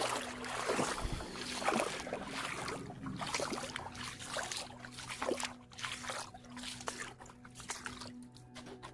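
Footsteps crunching and sloshing through wet sand and shallow creek water, uneven and irregular, over a faint steady low hum.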